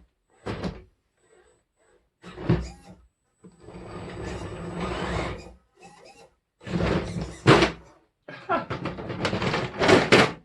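A small RC crawler truck climbing a hard, painted foam crawling course: irregular thuds, knocks and scraping bursts as its tyres and chassis bump and grind over the surface.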